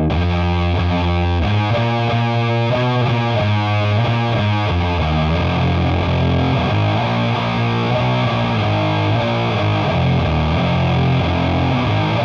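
Distorted electric guitar riff played through a high-gain amp, with the Doomsaw pedal, a single-knob take on the Boss HM-2 chainsaw distortion, switched on partway through for a thicker, grinding tone.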